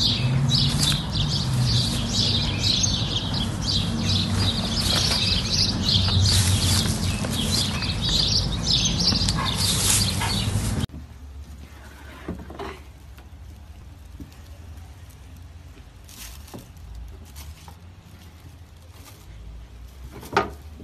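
Birds chirping busily over a steady low hum, which cuts off about eleven seconds in; then a quieter background with a few soft knocks and one sharp thump near the end.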